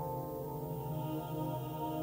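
Soft background music holding a sustained chord.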